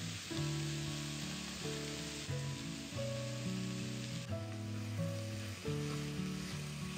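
Food frying in a hot pan, a steady sizzle, over background music.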